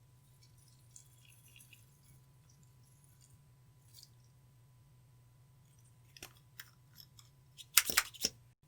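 Clear slime and eyeshadow being worked by hand, giving close crackles and clicks: sparse and faint at first, a few sharper clicks later, then a loud burst of crackling near the end.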